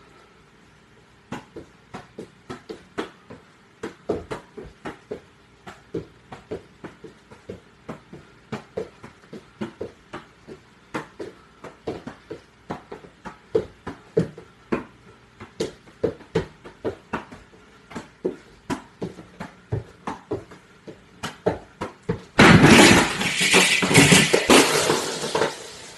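A ball being kept up with the feet: a long run of light taps, about two a second. Near the end comes a sudden loud crash and clatter lasting a few seconds.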